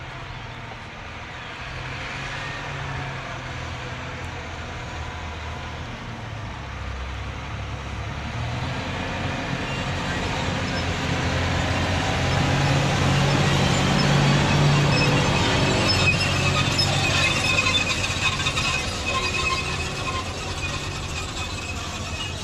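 John Deere 8310R tractor's six-cylinder diesel engine running steadily under load while pulling a cultivator, growing louder to a peak about halfway through as it comes close, then easing off.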